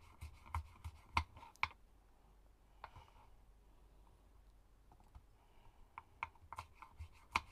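Kitchen knife slicing a long green chili on a wooden cutting board, each cut a sharp click of the blade against the board. The cuts come at about four a second, stop for about four seconds, then start again near the end.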